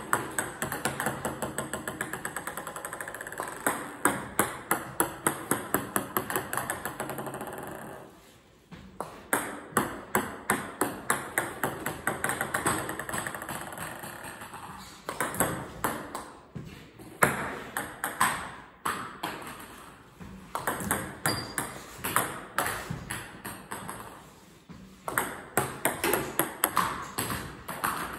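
Plastic table tennis balls bouncing repeatedly. Each run of quick clicks speeds up and dies away as a ball settles, and one run follows another.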